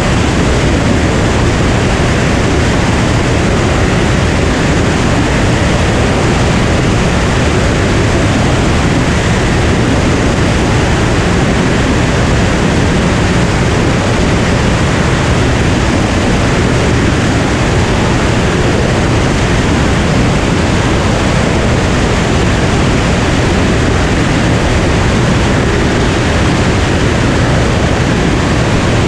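Cirrus SR22's six-cylinder piston engine and propeller running steadily in cruise flight, under a constant loud hiss of rushing air.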